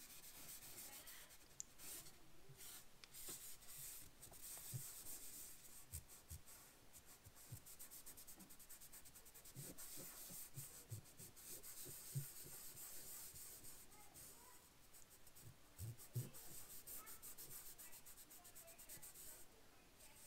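Fingertips rubbing chalk pastel into paper: a faint, continuous scratchy swishing, with a few soft, dull knocks scattered through it.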